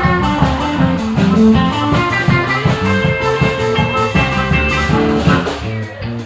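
Live country band playing an instrumental break: a guitar picks quick runs of notes over a steady drum beat.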